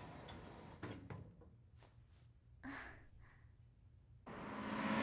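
Faint room tone with a couple of soft, short sounds, then a little past four seconds in a car's engine and road noise fade in and grow steadily louder.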